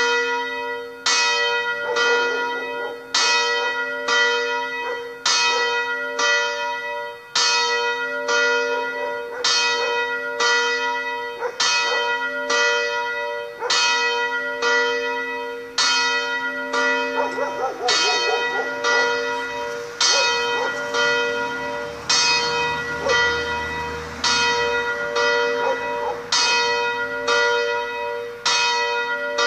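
Swinging church bell tolling evenly at about one stroke a second, each stroke leaving a long ringing hum. The tower's bells are hung on raised yokes and swung by a braked electromagnetic pull drive.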